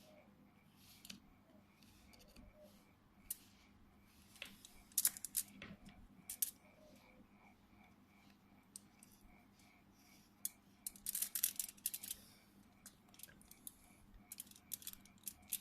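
Small hand tools clicking and scraping at close range, in scattered sharp ticks with two busier clusters, about five seconds in and again around eleven to twelve seconds.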